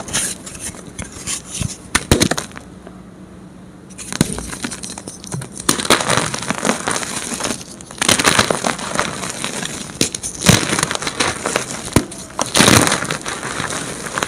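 Blocks of dyed gym chalk being crushed and crumbled, making bursts of crunching and crackling with sharp snaps as pieces break, and short quieter pauses between.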